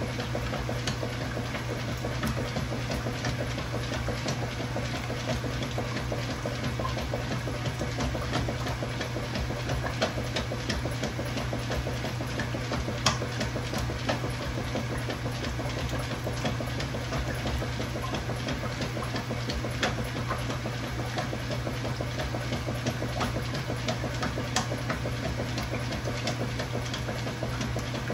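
Kenmore Ultra Fabric Care top-load washing machine running: a steady low motor hum under an even wash of noise, with many small irregular clicks.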